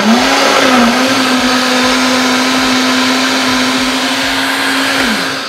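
Countertop blender motor running at full speed, blending fruit, milk, ice cream and ice into a drink. Its pitch dips once in the first second, holds steady, then winds down near the end.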